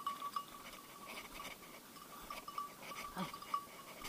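Bell on an English setter's hunting collar ringing steadily with a jingling flicker as the dog works through the woods, over the rustle of footsteps in dry leaf litter.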